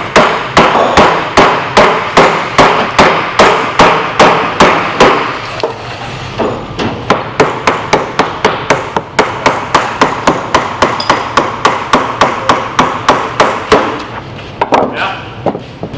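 Steady, rapid hammer blows on wood, about three a second, as a freshly steamed white oak frame is driven into the hull. After about six seconds the blows turn lighter and quicker, and they thin out near the end.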